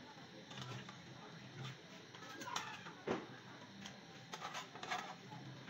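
A few light clicks and knocks over faint background noise, with one louder knock about three seconds in.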